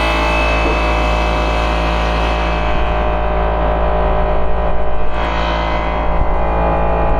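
Air-powered shop equipment running steadily: a constant whine over a low hum, while the plastic fan hub's bore is being ground out to fit the motor shaft. There is a brief rougher rise about five seconds in.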